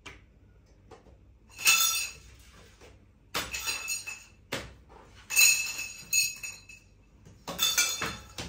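Parts of a shoe rack kit clinking and rattling together as they are handled and fitted, in five short bursts of half a second to a second, with a bright ringing edge.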